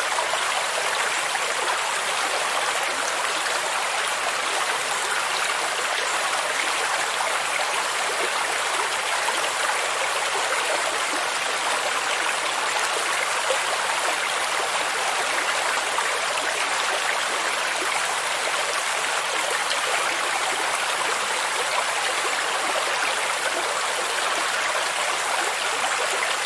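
Stream water rushing and babbling over stones, a steady, unchanging hiss.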